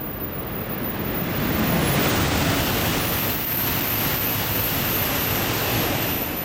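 Tohoku Shinkansen E5 series bullet train passing through the station at very high speed without stopping: a loud rush of air and wheel noise. It builds over the first two seconds, holds steady, and starts to fall away at the very end as the train clears the platform.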